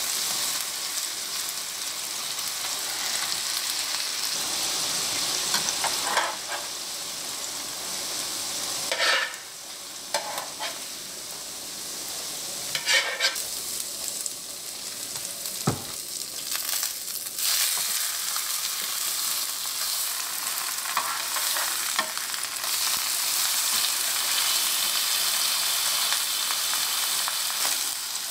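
Dried pollack sizzling in hot oil in a nonstick frying pan, with a spatula scraping and knocking against the pan a few times. The sizzle dips about a third of the way in and grows fuller again in the second half.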